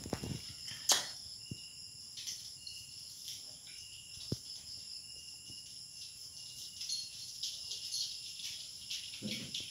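Steady high-pitched chirring of night insects at several pitches at once. Over it come a few sharp clicks, the loudest about a second in, and soft scuffs as two puppies wrestle on a vinyl floor.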